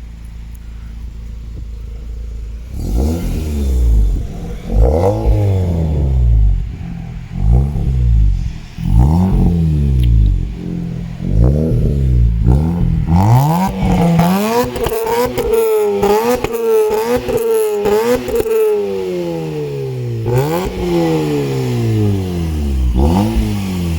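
Mazda RX-8's rotary engine through a Greddy SP2 aftermarket exhaust, running low and steady at first, then revved up and let fall again and again. In the middle comes a run of quick, rapid throttle blips, and near the end come longer rises and falls.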